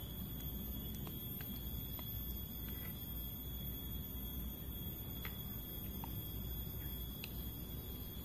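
A steady, high-pitched drone of forest insects, with scattered light clicks of metal spoons against plastic bowls.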